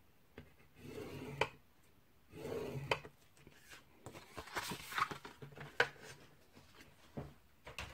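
A metal-tipped stylus scraping along cardstock as it scores a diagonal fold line, in two short strokes in the first three seconds, followed by the cardstock rustling and clicking as it is lifted and handled.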